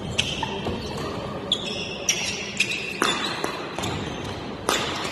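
Badminton rally: several sharp racket hits on the shuttlecock, with athletic shoes squeaking briefly on the court floor between them.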